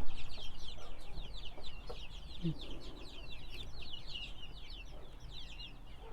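Many chickens calling at once: a dense, continuous chorus of short, high-pitched peeps, each sliding downward, with a single lower call about two and a half seconds in.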